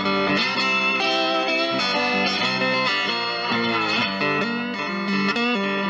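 Electric guitar playing a melodic line of single notes and chords, with a bent note about two-thirds of the way through.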